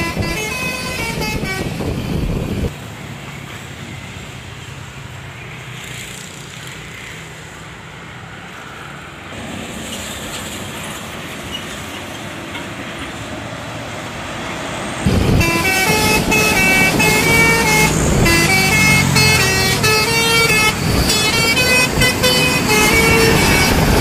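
Telolet Basuri multi-trumpet bus air horns playing a fast stepping melody, which cuts off about three seconds in. Quieter road noise follows until about fifteen seconds in, when the horn melody returns loud and keeps playing.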